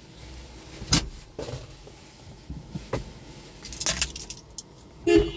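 Clicks, knocks and a key-like jingle inside a car cabin as someone settles into the car, with a loud thump a little after five seconds in.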